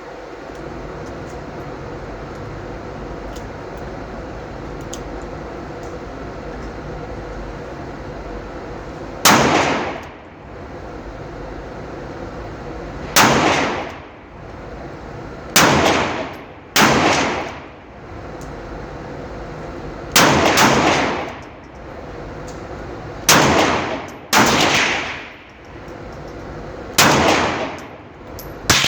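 Springfield XDM 9mm pistol fired slowly, about nine single shots one to four seconds apart, each trailing off in a short echo. The first shot comes about nine seconds in, after a stretch of steady background noise.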